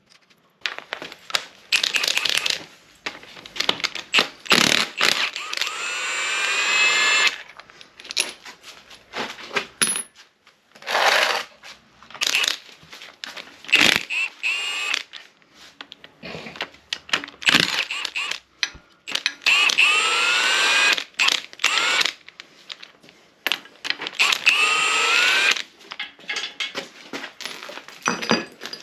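A cordless power tool run in repeated bursts of a few seconds, its motor whine rising as it spins bolts out of the engine, with sharp metallic clinks of bolts and sockets between the bursts.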